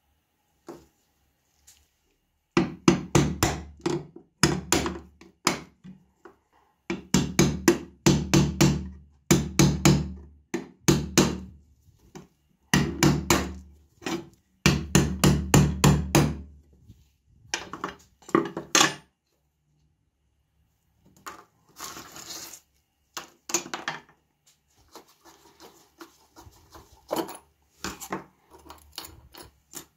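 Hammer blows on a steel punch set into a telephone's steel base plate, which rests on a steel disc: bursts of quick, ringing metal strikes several a second, coming in groups for about fifteen seconds. After that, quieter clicks and scrapes of metal parts being handled.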